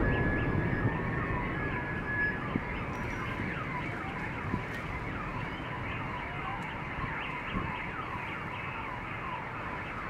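Car alarm sounding: a steady high tone for the first couple of seconds, then quickly repeating rising and falling pitch sweeps. A low rumble of city background noise runs underneath.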